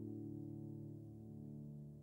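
Soft instrumental music: a held chord of several steady notes, slowly fading out.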